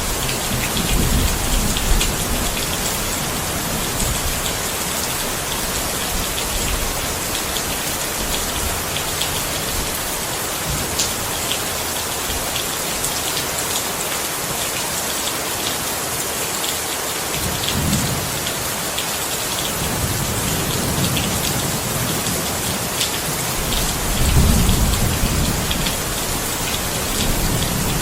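Steady heavy rain falling on a hard surface, with individual drops ticking sharply. Low rolls of thunder rumble several times, loudest near the start and again near the end.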